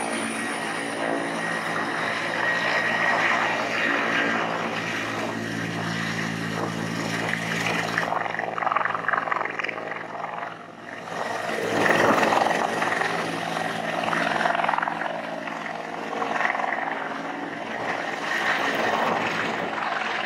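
Helicopter running at full power as it lifts off, hovers low and climbs away, a steady engine and rotor sound with a brief dip in loudness about ten seconds in.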